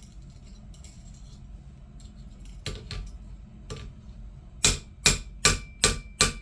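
Hammer crimping a joint in 18-gauge copper wire on a makeshift metal anvil. A few light taps come first, then from about four and a half seconds in a quick run of sharp metal-on-metal strikes, about three a second, with a faint ringing note over them.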